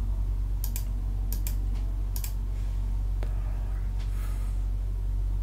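A handful of sharp computer clicks from mouse and keyboard use, bunched in the first two seconds or so, with one fainter click a second later, over a steady low hum.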